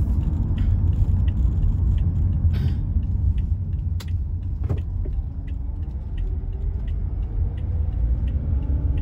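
Steady low rumble of a car's engine and tyres heard from inside the cabin while driving, with a few light clicks.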